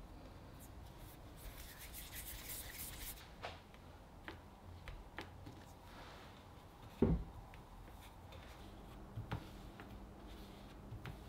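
Hands rustling a waffle-weave cotton kitchen towel over pieces of dough, then working dough with a rolling pin on a wooden cutting board: scattered light taps and one dull knock about seven seconds in.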